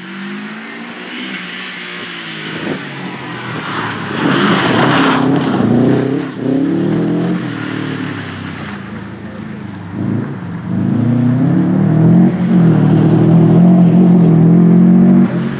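Subaru Impreza STI's turbocharged flat-four engine revving hard under acceleration, its pitch rising and falling as the driver lifts off and changes gear, with dips about six and ten seconds in. It is loudest near the end, held at high revs as the car accelerates away.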